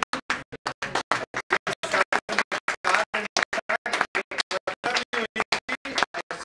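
Stuttering, chopped-up audio with music in it, broken by short dropouts about seven times a second.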